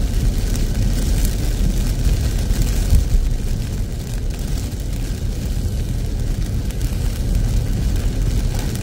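Steady rumble of a car driving on a wet road in heavy tropical rain, heard from inside the cabin, with tyre spray and rain hitting the windscreen and roof.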